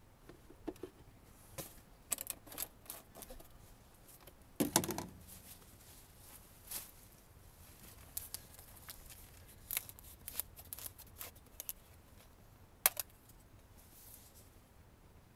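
Plastic quart oil bottles being handled as an empty one is lifted from the engine's oil filler and a fresh one is brought up: scattered light clicks and plastic knocks. There is a louder knock about five seconds in and a sharp click near the end.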